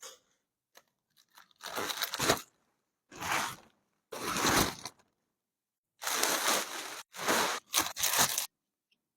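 Packaging being torn and crinkled during an unboxing, in about six short noisy bursts separated by gaps.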